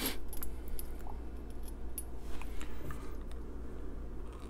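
Light, irregular clicks and taps of small hard parts being handled: a micarta knife scale and a small knife-oil bottle picked up off a desk mat among loose screws and tools.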